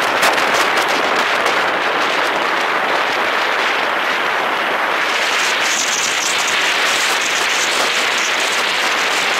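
Wind rushing over the microphone of a camera carried on a moving scooter: a steady, loud hiss that turns brighter about five seconds in.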